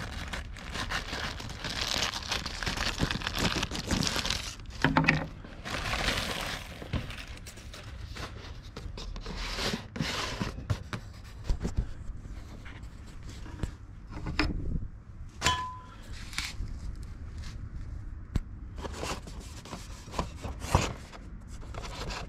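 Plastic mailer bag and bubble wrap crinkling and rustling as they are opened and handled, then sparser knocks, clicks and scrapes as a cardboard box is handled and set on a wooden table.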